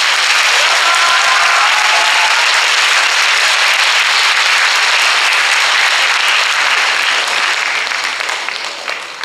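Audience applauding, steady and loud, thinning out over the last couple of seconds.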